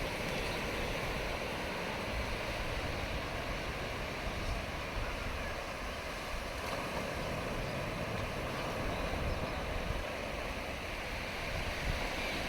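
Ocean surf washing in as a steady rush of waves, with wind buffeting the microphone.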